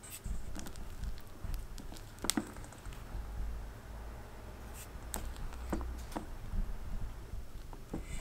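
Silicone spatula stirring thick madeleine batter in a stainless steel bowl: scattered soft taps and scrapes against the bowl, the clearest about two seconds in. The batter is being stirred gently after resting, to knock the air out of it.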